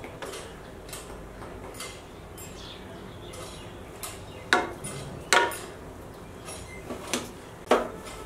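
A serving spoon knocking and scraping against a metal cooking pot as cooked rice is spooned in: a few faint taps, then four sharp clanks in the second half.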